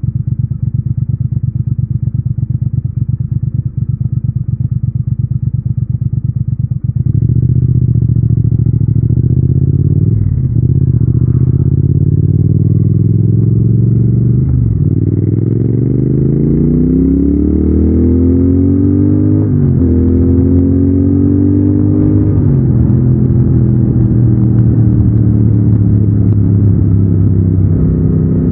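Triumph Thruxton 1200's 1200 cc parallel-twin engine on the stock exhaust, running evenly at low revs, then opening up about seven seconds in. It accelerates through the gears: the pitch rises and drops back at four upshifts, then settles into a steady pull.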